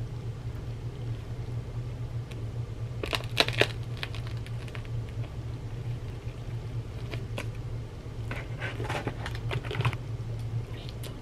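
Crisp crackling crunches from biting into and handling a crusty baguette sandwich, in two short bursts a few seconds apart, over a steady low hum.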